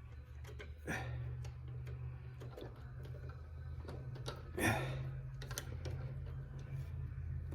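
Small scattered metal clicks and taps of springs and lathe chuck jaws being handled as the springs are fitted between the jaws, with a steady low hum underneath.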